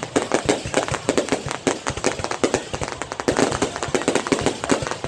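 Fireworks going off: a dense, continuous run of sharp cracks and pops, many every second.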